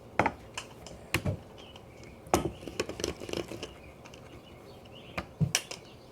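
Scattered light taps and knocks of Play-Doh tools, knives and rolling pins, against a tabletop while Play-Doh is being cut and rolled, a handful of separate knocks rather than a steady rhythm.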